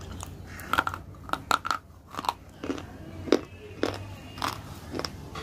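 Ice being bitten and chewed: about ten sharp, irregular crunches as teeth break into a block of ice and grind the cubes in the mouth.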